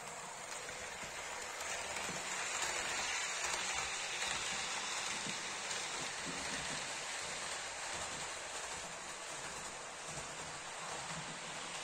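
HO-scale model steam locomotive and passenger cars rolling on sectional track: an even hissing rattle of metal wheels on the rails, swelling a few seconds in and slowly fading as the train runs away.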